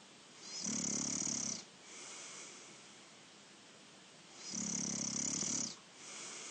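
A person snoring in sleep: two loud snores about four seconds apart, each followed by a softer breath.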